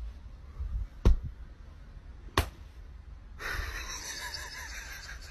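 Two sharp knocks, about a second in and again a second later, then a domestic cat hissing, a breathy hiss from about three and a half seconds in that lasts to the end.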